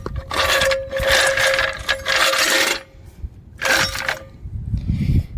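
A 2-ton floor jack being rolled out from under a car, metal scraping and rattling in two long stretches with a short pause about three seconds in.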